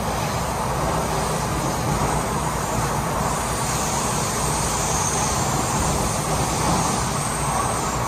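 MTR Metro-Cammell M-Train carriage running at speed through a tunnel: a steady, loud rumble of wheels on rail heard from inside the car. A faint high hiss comes in about three and a half seconds in.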